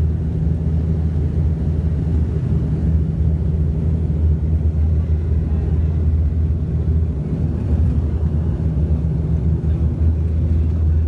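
ATR 72-212 twin turboprop engines and propellers droning steadily, with a deep, even propeller hum, as heard from inside the passenger cabin.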